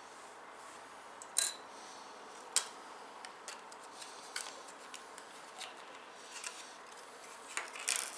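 Sharp clicks and small taps of computer parts being handled and fitted onto a PC motherboard. The two loudest come about a second and a half and two and a half seconds in, with lighter ticks scattered after and a short cluster near the end.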